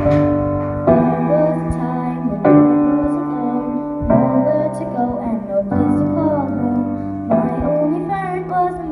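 Piano-keyboard introduction of a backing track, sustained chords changing about every second and a half.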